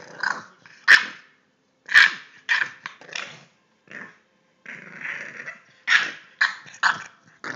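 English bulldog puppy giving short barks and growls in quick bursts, about a dozen, while play-wrestling with a hand, with a longer growl about five seconds in.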